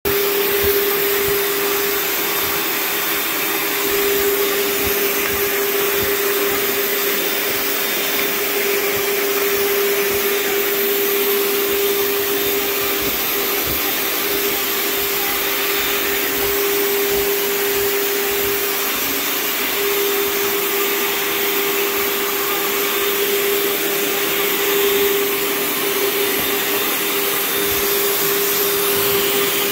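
Backpack vacuum cleaner running steadily, a constant motor whine over a rush of air, as its wand nozzle is worked along the fabric cushions of a sofa.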